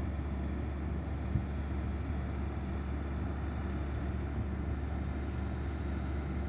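Heavy diesel earthmoving machinery running with a steady, low engine drone.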